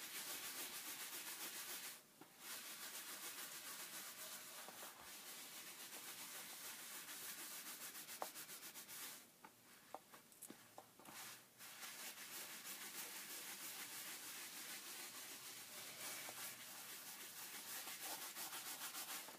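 Dry document cleaning pad rubbed in small circles over a paper book cover: a faint, quick, rhythmic scrubbing, pausing briefly a few times, as it lifts surface dirt off the paper.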